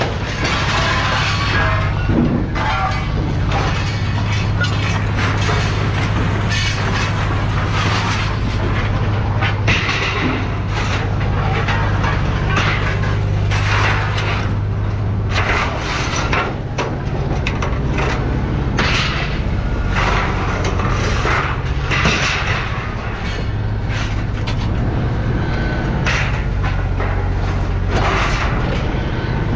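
Scrap metal being thrown off a truck: a run of irregular clanging crashes and thuds over a steady low hum.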